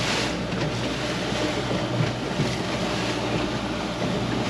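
Wind on the microphone and water noise aboard a small boat, a steady rushing with a low, even hum underneath.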